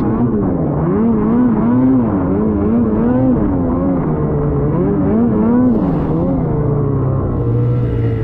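Ski-Doo Freeride snowmobile's 850 two-stroke engine under hard load in deep snow. The revs rise and fall about twice a second with the throttle, then settle lower and steadier near the end.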